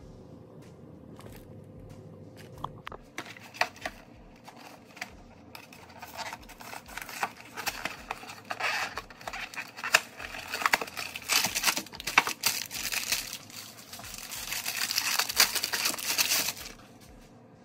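A frozen meal's cardboard box handled and its plastic overwrap crinkled and torn off the tray by hand. It starts with scattered clicks and rustles, grows into dense crinkling, and stops abruptly near the end.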